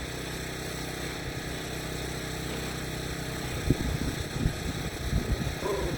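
A steady mechanical hum, with a few low thumps and scuffles from just under four seconds in and a brief rising squeak near the end.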